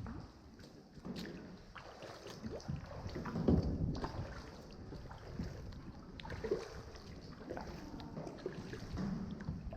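Small paddled boat moving through the water: irregular paddle dips and soft splashes, with faint voices in the background.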